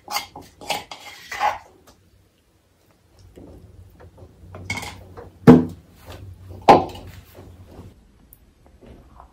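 Clatter of a plastic spoon and dishes: quick scraping clicks in the first two seconds, then two sharp knocks in the second half.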